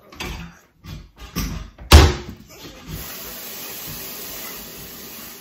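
A few soft knocks, then a single loud slam about two seconds in, followed by a steady hiss that cuts off suddenly near the end.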